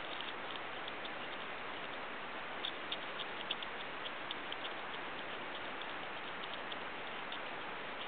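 North American porcupine gnawing kernels off a corn cob: a run of small, crisp crunching clicks, thickest a few seconds in, over a steady hiss.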